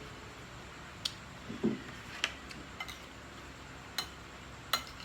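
Eating sounds at a table: about half a dozen soft, scattered clicks and clinks of plates and food being handled, over a low steady room hum.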